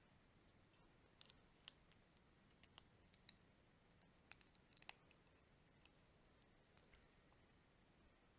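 Faint, irregular small plastic clicks of Lego bricks being handled and snapped together, about a dozen scattered ticks with a quick cluster about halfway through.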